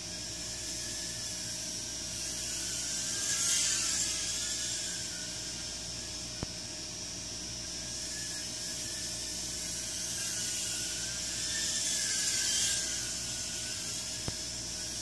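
Micro ducted quadcopter (Blade Inductrix FPV) flying, its propellers giving a high whine whose pitch wavers with the throttle over a steady hiss. It swells louder twice, about three to four seconds in and again around eleven to twelve seconds, as it comes close. A faint click about six seconds in.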